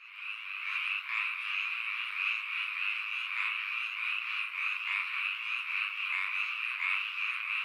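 A dense chorus of many frogs calling together, a continuous mass of overlapping croaks that fades in at the start. Faint high chirps repeat above it about twice a second.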